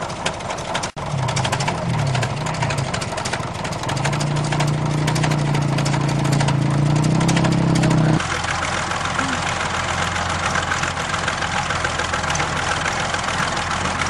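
Old crawler bulldozer engine running with a dense, rapid clatter. From about four seconds in it holds a strong, slightly rising drone under load while pulling, then changes abruptly to a steadier, lower running sound about eight seconds in.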